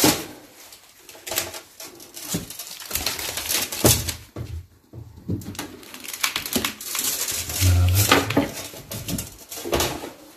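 Handling of a broken wooden picture frame with a hardboard back: irregular scrapes, rustles and knocks, busiest about eight seconds in.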